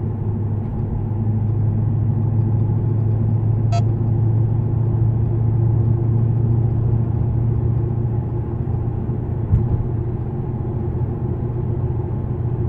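Supercharged 5.4-litre V8 of a 2005 Mercedes-Benz E55 AMG with long-tube headers, heard from inside the cabin while driving: a steady low exhaust drone. A brief high chirp sounds just before four seconds in, and a short thump comes near ten seconds.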